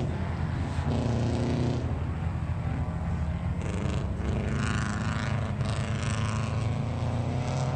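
Steady low drone of a generator engine running close by, with a second engine's note rising and falling faintly over it in the second half.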